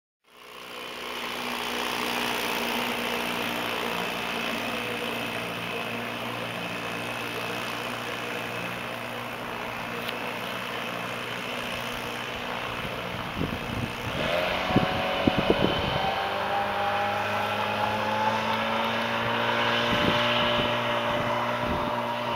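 1952 Mercury KE-4 two-cylinder two-stroke outboard motor running at speed, pushing a small hydroplane across the water with a steady, buzzing note. Its pitch climbs slightly in the second half, with a few brief thumps mixed in.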